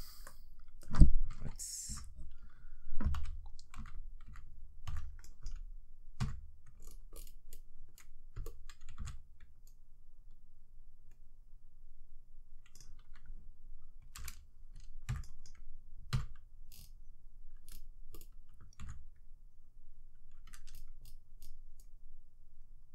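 Irregular clicks and taps of a computer keyboard and mouse, with a few heavier knocks in the first several seconds, over a low steady hum.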